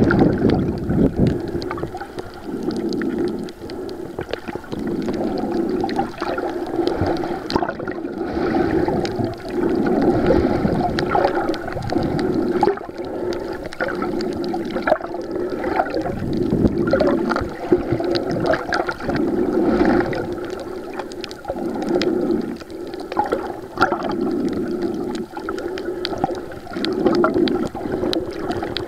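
Muffled underwater water noise heard through a waterproof camera held under the surface: a dull sloshing and gurgling that swells and fades every second or two as the snorkeller moves through the water.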